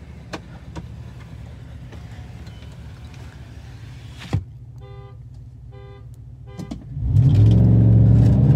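Muffler-deleted Chevrolet Silverado 6.2-litre V8 idling at a standstill, with two short beeps about five and six seconds in. Near the end the engine goes to full throttle for a launch from a dead stop, loud and rising in pitch, heard from inside the cab.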